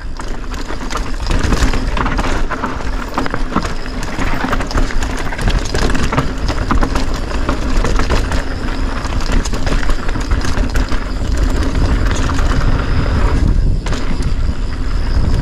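Mountain bike riding fast down a rough dirt and rock trail: tyres crunching over the ground and the bike clattering over bumps in many short knocks, over a steady low rumble of wind on the bike-mounted camera's microphone.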